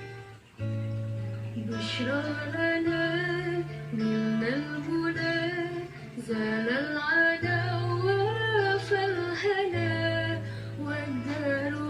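Music: guitar with a singing voice that slides and wavers between notes over held low notes. The music drops out briefly about half a second in, then carries on.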